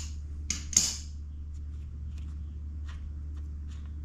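A few sharp clicks and clinks within the first second as a motorcycle's oil cap is worked open by hand, then light scattered ticks of handling, over a steady low hum.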